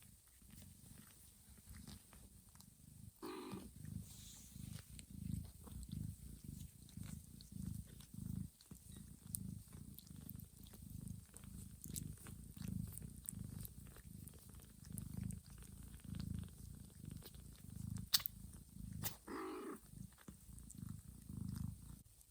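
Cat purring in a steady low rhythmic pulse while grooming her newborn kittens, with two brief squeaky calls, one about three seconds in and one near the end.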